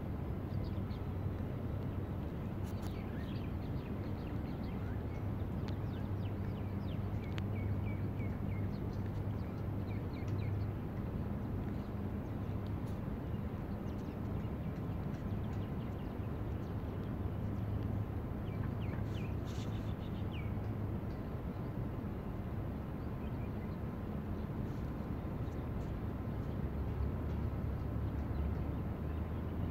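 Outdoor ambience: a steady low engine hum, with a few short bird chirps now and then.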